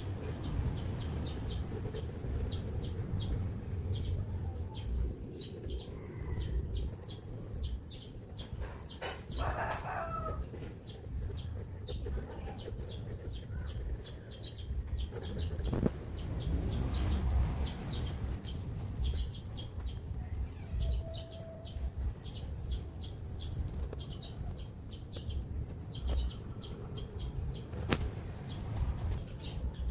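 Quick, rhythmic scratching of a pen on paper as it shades in short strokes, with birds chirping in the background.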